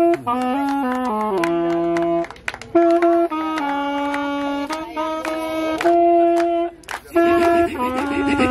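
A saxophone playing a slow melody of long held notes, pausing briefly twice.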